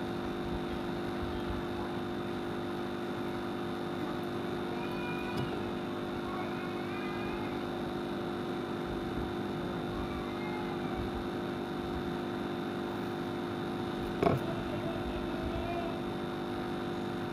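Steady electric hum with several fixed tones, typical of the electric pedestal fan's motor running. A few faint high chirping calls come and go, and there is one sharp knock about fourteen seconds in.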